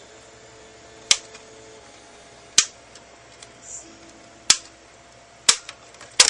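Sharp plastic clicks, about five, spaced a second or two apart: the snap tabs of an Xbox 360 case popping as a small flathead screwdriver pushes them in.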